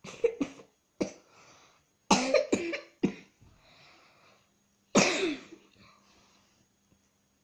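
A child coughing in fits: a few coughs at the start, a quick run of three about two seconds in, and a last single cough about five seconds in, each followed by breathing.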